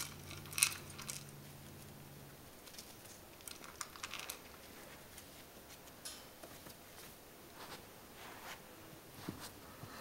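West Highland white terrier puppy eating dry kibble from a bowl: faint, irregular crunches and clicks.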